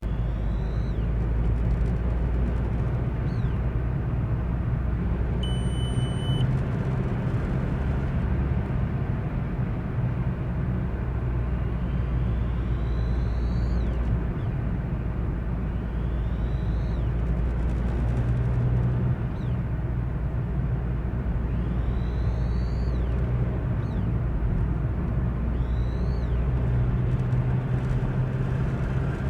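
VW Golf IV 1.9 TDI four-cylinder turbodiesel running with a steady low rumble. A high whistle recurs every few seconds, each time rising in pitch and then cutting off: the turbo whistle that the owner takes for a fault and cannot explain.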